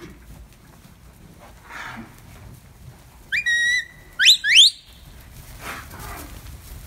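A herding-dog handler's whistle commands: one whistle that rises and then holds a steady note about three seconds in, then two short, sharply rising whistles just after.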